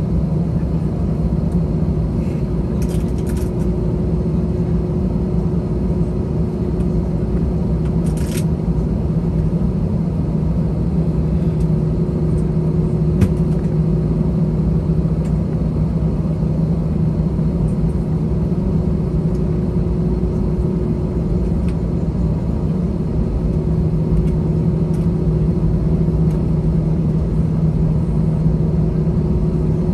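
Airbus A321's CFM56 jet engines at taxi idle, heard inside the cabin as a steady low rumble with a constant hum, while the airliner taxis. A few faint clicks or rattles come through about 3, 8 and 13 seconds in.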